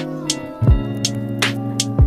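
Background music with a steady beat: deep bass kicks that drop in pitch, sharp snare-like hits and held chord tones.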